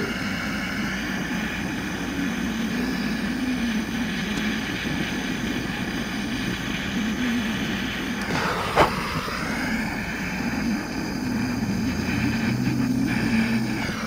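Handheld Power Probe gas torch burning steadily with a rushing flame noise while heating a crimped wire splice to flow solder into it. About nine seconds in there is a brief swoop down and back up in pitch.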